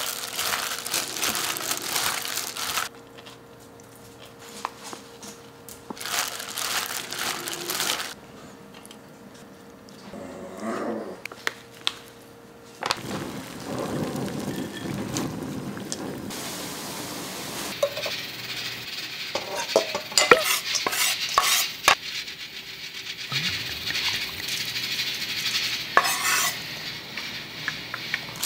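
Kitchen food-prep sounds in a string of short scenes: a plastic-gloved hand crinkling as it tosses salad in a glass bowl, then water bubbling in a pot, then sharp clinks of utensils against a stainless-steel mixing bowl.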